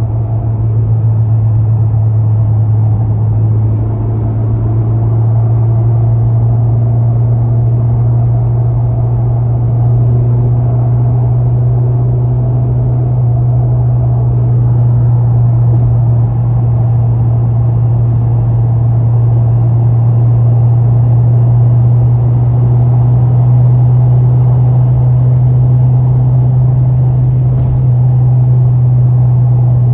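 2020 Honda Civic Si driving, its engine and road noise making a steady low drone that drifts slightly in pitch.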